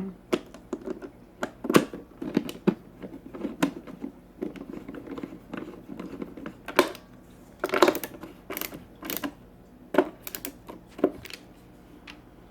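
Irregular clicks and knocks of plastic and metal parts being handled and fitted together while reassembling a cooking pot's lid, a few of them sharp and loud.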